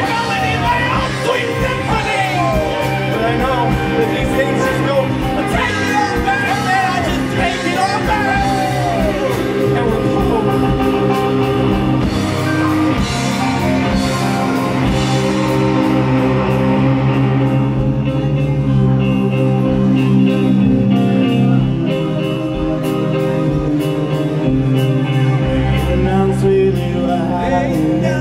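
Live rock band playing an instrumental break on electric guitars, bass guitar and drum kit. A sliding, wavering melody line runs over the band for the first ten seconds or so; from about two-thirds of the way through the cymbals fall away and the band holds sustained chords.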